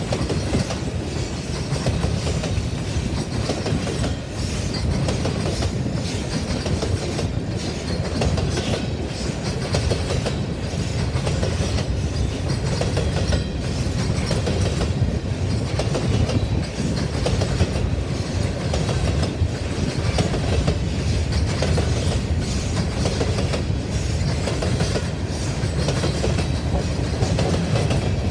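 Freight grain train rolling past steadily, its car wheels clicking over the rail joints above a continuous low rumble.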